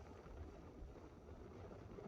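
Faint, steady low rumble of outdoor background noise, with no distinct events.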